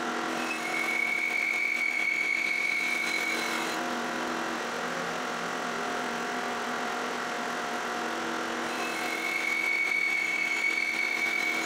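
Band saw running steadily while twice slicing a thin disc off a wooden segmented block. Each cut adds a high steady whine for about three seconds, the first near the start and the second about nine seconds in.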